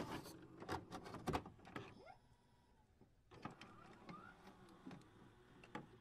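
Faint clicks and short whirring, sliding sounds, with a silent gap about two seconds in.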